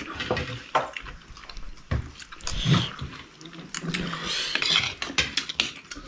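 Spoons and cutlery clinking and scraping against plates and bowls while people eat, an irregular scatter of small sharp clicks.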